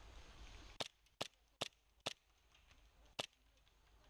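Airsoft guns firing five single shots, sharp cracks at uneven intervals, with a longer gap before the last one.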